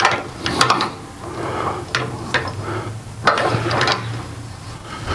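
Wooden clunks and rubbing as a red oak bowl blank is shifted between the lathe's centers and the tailstock adjusted, with several sharp knocks spaced about a second apart.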